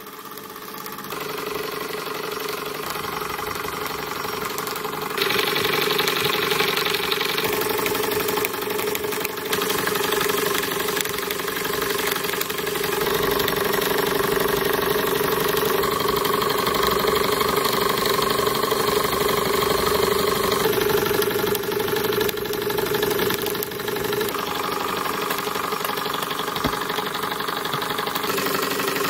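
Retrol model steam dynamo plant running: its small brass steam engine turns smoothly and drives the dynamo, giving a steady, even running sound with a constant hum. The tone and loudness shift slightly a few times.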